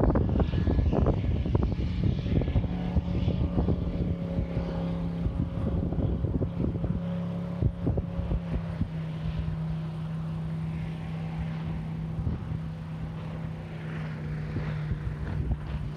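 1989 Vector 24 speedboat's engine running at speed, heard as a steady engine note. Wind buffets the microphone, most strongly in the first few seconds.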